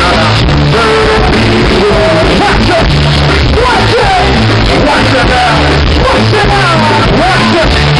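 Live band playing loud, with a bass line and a male vocalist singing into a microphone. The recording is overloaded and distorted.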